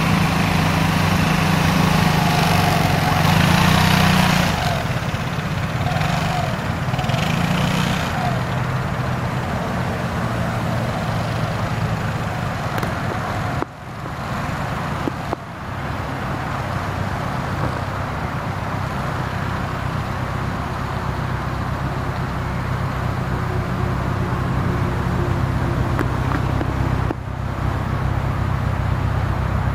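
Vespa scooter engine idling close by, then revving as the scooter pulls away, and settling into a steady, fainter hum as it rides off at low speed.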